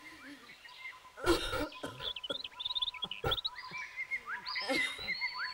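Small birds chirping, quick high calls, with two brief thumps about two seconds apart.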